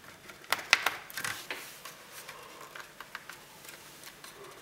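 Fingers pressing and tapping on a thin plastic candy-kit mould tray while pushing dough into it: a handful of sharp clicks in the first second and a half, then fainter scattered ticks.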